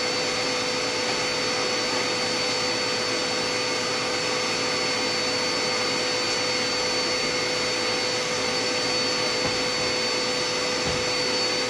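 Dirt Devil Endura Reach upright vacuum cleaner running steadily, a constant motor whine over the rush of air.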